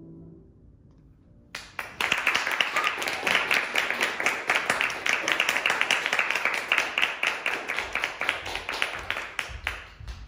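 The last piano chord dies away, and after a short pause a small audience breaks into applause, easing off near the end.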